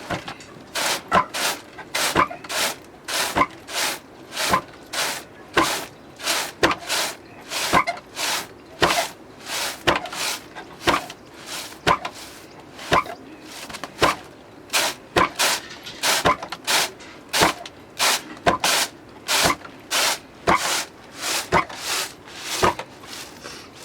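Barley grain being worked by hand with traditional tools in steady, rhythmic strokes, about two a second and often in close pairs.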